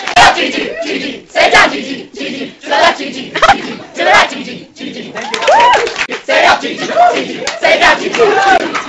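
A group of people shouting and calling out, broken every second or so by sharp impacts.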